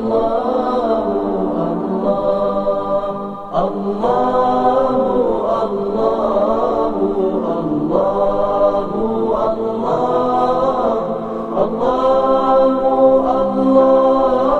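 Chanted vocal music: a voice singing long, sliding melodic phrases, with a brief dip about three and a half seconds in.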